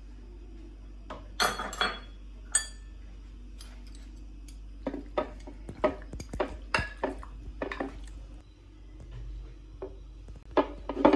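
Kitchen utensils and dishes clinking and knocking against each other. There are a few clatters in the first seconds, then a quick run of light taps around the middle.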